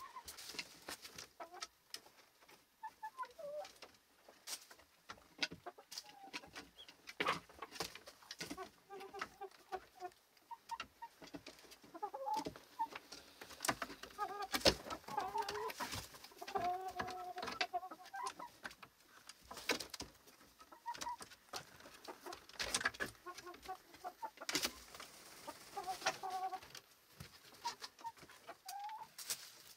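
A small flock of domestic chickens clucking softly in short, scattered calls, with many sharp clicks and taps throughout.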